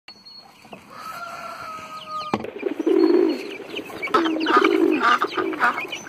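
Farmyard poultry calls. A single held call starts about a second in and cuts off abruptly a little past two seconds. It is followed by a run of short, repeated calls, several a second, growing louder toward the end.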